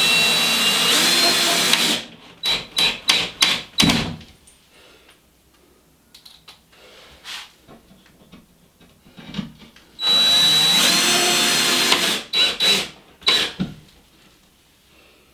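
Power drill driving screws into a drywall patch, twice: each time a steady run of about two seconds, with the motor pitch rising, then a few short trigger pulses as the screw is seated.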